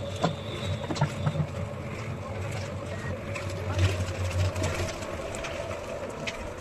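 A small engine-driven machine running steadily with a low drone, with scattered sharp knocks and clicks over it.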